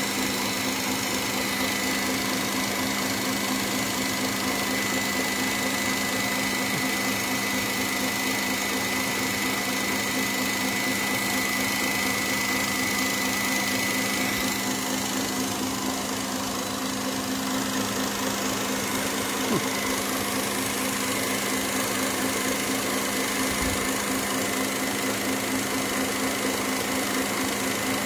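KitchenAid stand mixer running steadily, its beater churning whipped heavy cream in a steel bowl as the cream begins to break into butter.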